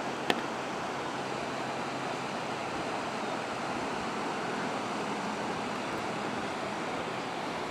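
River water rushing below, a steady wash of noise, with a single light click about a third of a second in.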